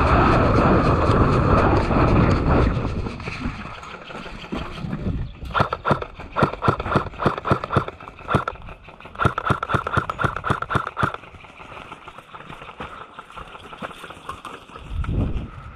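Wind and movement rumble on the camera microphone, then a G&G UMP45 electric airsoft gun fitted with a suppressor firing rapid semi-automatic shots, each a quiet clack with a short gearbox whir, about three or four a second in two strings between about five and eleven seconds in.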